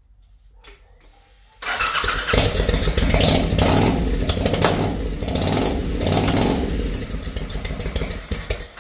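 Twin-turbocharged Triumph Bobber 1200cc parallel-twin engine starting about a second and a half in and running unevenly, its level swelling and falling, for about seven seconds before it stops near the end. It is running rich and struggling, which the builder puts down to the two tiny turbos restricting the exhaust.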